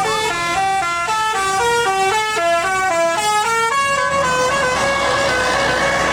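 Tour bus telolet horn playing a fast tune of short stepped notes, about four a second. Near the end it holds longer notes, with more background noise underneath.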